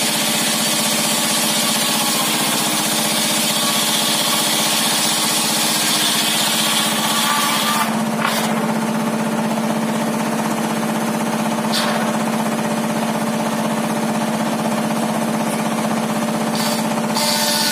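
Homemade table saw's circular blade running steadily while ripping a large timber beam, a high cutting hiss over a steady motor hum. The hiss drops away about eight seconds in as the motor keeps running, with a few faint knocks.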